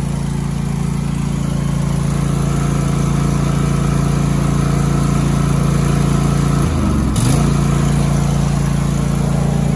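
The Cub Cadet Ultima ZT1 zero-turn mower's Kohler 7000 22 HP twin-cylinder engine running steadily just after starting. About seven seconds in, the pitch wavers briefly and a short click is heard, after which it runs slightly louder.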